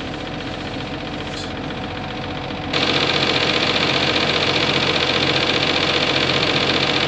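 An engine running steadily. About three seconds in the sound jumps abruptly to a louder, busier engine run with more high-end, and holds there.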